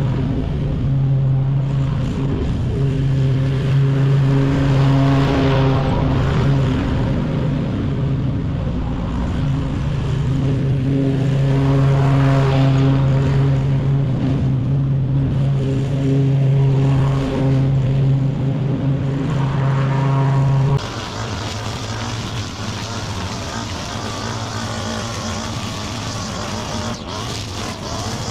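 Walk-behind lawn mower engine running steadily under load as it cuts grass. About twenty seconds in it cuts off abruptly to the higher, thinner sound of a handheld small-engine trimmer.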